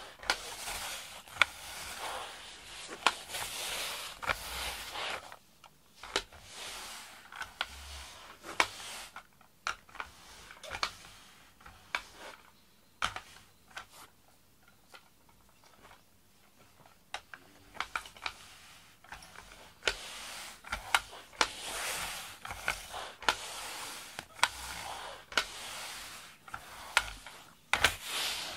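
Adhesive lint roller rolled over a foam puzzle-mat floor, its sticky tape crackling and clicking as it peels off the mat. It comes in spells of a few seconds with quieter pauses between.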